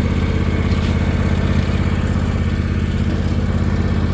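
Riding lawn mower's engine running steadily with a fast, even pulse as the mower is driven.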